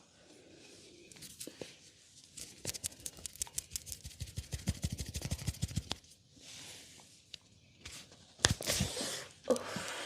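Hands massaging a person's head and upper body: a run of fast rhythmic tapping, about eight taps a second, with rubbing on skin and hair, then a louder hit near the end.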